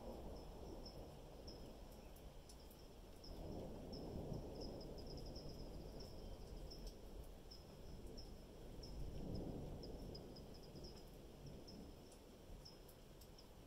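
Faint distant thunder rumbling, swelling about three seconds in and again about nine seconds in, then fading. Steady high-pitched cricket chirping runs through it.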